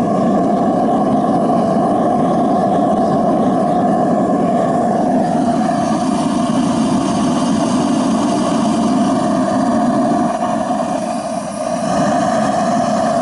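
Homemade waste-oil furnace burner firing on waste oil and propane: a loud, steady rushing of flame and air with a low hum under it.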